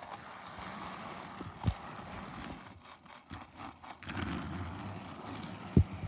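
Battery-powered motorized Thomas and Percy toy trains running along plastic track, a steady motor whir and wheel rattle. Two sharp knocks cut through, about two seconds in and again near the end.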